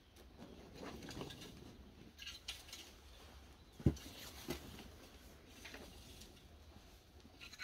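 A rake scratching and scraping through sand in irregular strokes, with one sharp knock about four seconds in.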